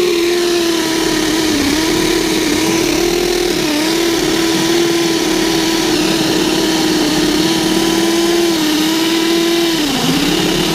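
Power drill boring a hole down through wooden wall framing, its motor running at a steady pitch that sags briefly several times as the bit bites. Near the end the pitch drops as the bit breaks through.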